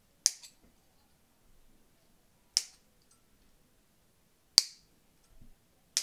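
Wire cutters snipping the soldered LED leads off a circuit board: single sharp snips, about two seconds apart.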